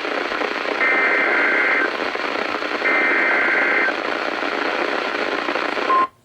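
Emergency Alert System (SAME) digital data bursts from a NOAA weather radio: two full bursts of buzzy two-tone warbling, each about a second long and a second apart, with the tail of an earlier burst at the very start, all over steady radio static hiss. Just before the end a short steady tone sounds, then the audio cuts off suddenly.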